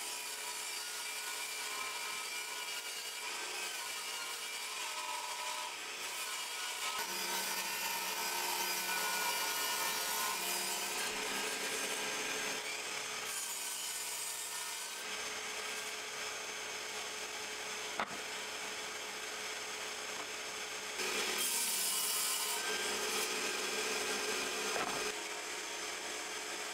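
Table saw ripping 18 mm OSB into drawer pieces: the blade runs steadily, and the level and pitch shift a few times as boards are fed through. A single sharp click sounds about two-thirds of the way in.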